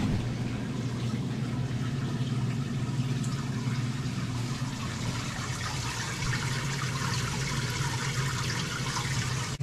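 Water trickling and splashing into a minnow tank, with bubbles rising, over a steady low hum.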